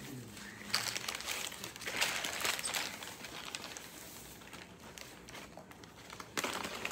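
Paper sandwich wrapper crinkling as the sandwich is handled and bitten into, in several bursts: about a second in, around two to three seconds in, and again near the end.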